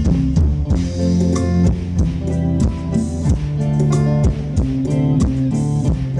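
Live band playing amplified music: electric guitar and bass over a drum kit keeping a steady beat.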